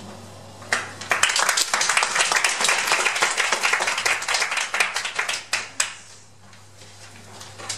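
Small audience clapping, starting about a second in and dying away after about five seconds, with a few last claps near the end.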